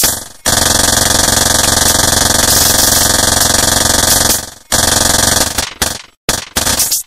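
Low-tech noise music: a bang, then a loud, steady buzzing drone of electronic interference with hiss on top that cuts off suddenly after about four seconds, followed by a quick run of bangs that each die away.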